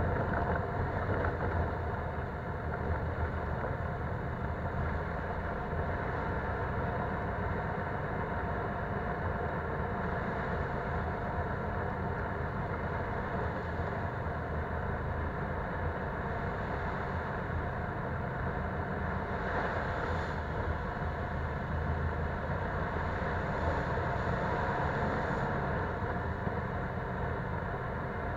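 Polaris Sportsman 570 ATV's single-cylinder engine running steadily while riding along a dirt trail. It holds a constant low drone with no big revs or pauses.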